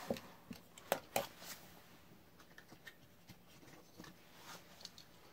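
Small clicks and rustles of die-cast toy cars being handled and picked out from among others, with a few sharper clicks in the first second and a half and fainter ticks after.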